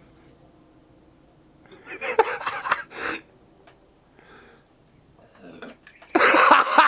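A dog burping: a rough, throaty belch about two seconds in, then another loud, sudden sound starting near the end.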